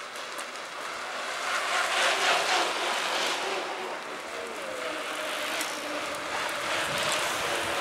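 A group of mountain bikes riding past on a tarmac road, with a steady rush of knobby tyres on the asphalt and a faint wavering hum as the riders near, mixed with wind on the microphone.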